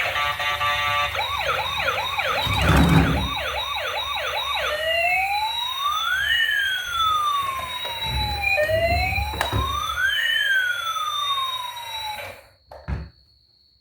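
Electronic toy siren from a toy emergency vehicle. It sounds first as a fast yelp of about two to three sweeps a second, then as a slow rising and falling wail, and cuts off suddenly near the end. A short knock follows.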